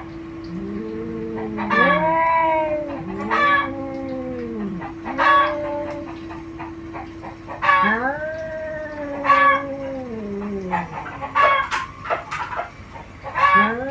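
Domestic cats caterwauling in a fight: long drawn-out yowls that rise and fall in pitch, coming every second or two, with short harsh bursts between them.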